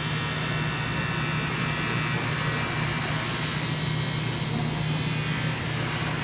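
Haas 5-axis CNC machining centre milling an aluminum part under coolant. A steady low hum carries a high whine of several tones from the spindle and cutter, over a hiss of coolant spray.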